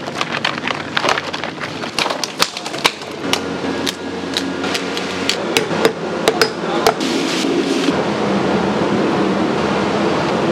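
Cleaver chopping through mud crab on a wooden chopping block: a run of sharp, uneven knocks for about seven seconds. Then a steady sizzle of crab cooking in chilli sauce in a wok.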